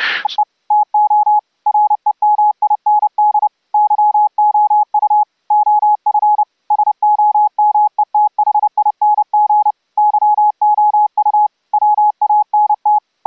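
Morse code (CW) heard as an audio tone from an Elecraft K3S transceiver's monitor circuit, streamed over IP: one steady note just under 1 kHz keyed on and off in quick dots and dashes, starting about half a second in. The keying comes from an audio file played into the rig to stand in for a real CW key.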